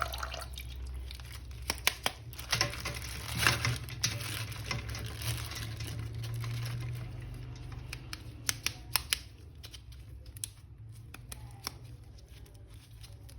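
Small clicks, taps and rustles of objects being handled, scattered irregularly and thinning out in the second half, over a steady low hum.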